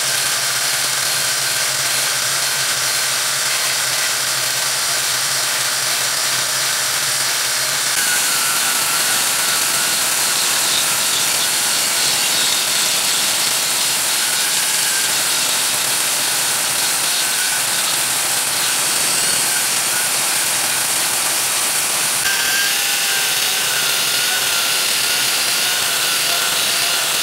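Corded angle grinder fitted with a chainsaw bar and chain, running steadily as it cuts lengthwise along a wooden board to thin it. The cutting noise gets louder and brighter about eight seconds in.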